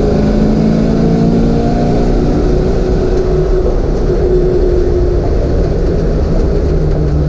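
A 1988 Ford Mustang's engine pulls hard under acceleration down a straight, heard from inside the cabin.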